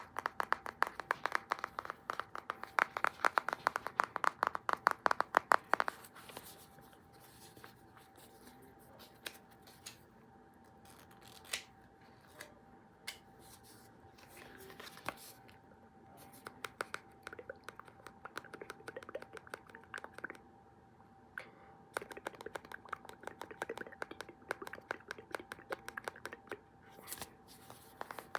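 Rapid clicking and tapping in quick runs, densest in the first six seconds and again from about sixteen seconds on, sparser in between, over a faint steady hum.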